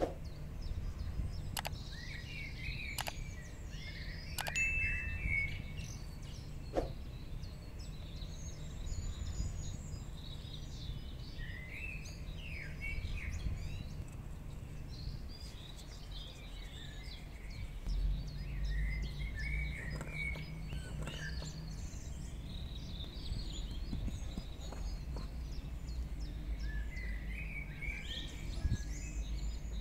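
Birds chirping in short scattered calls over a steady low outdoor background rumble, with a few sharp clicks in the first several seconds.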